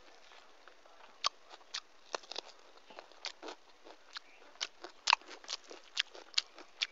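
Close-miked chewing of a mouthful of rice and dal with the lips closed: a run of irregular, sharp wet mouth clicks and smacks, starting about a second in.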